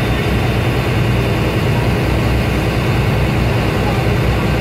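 Fishing boat's engine running steadily under way, with a deep, even drone.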